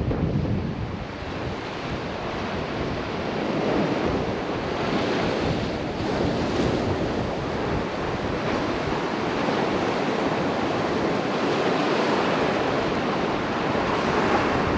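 Sea waves washing on the shore in a steady, swelling wash, with wind buffeting the microphone.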